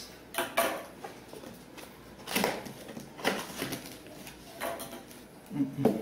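Scissors and hands working at a cardboard box to cut it open: a scattered series of short clicks, scrapes and knocks, about half a dozen in all.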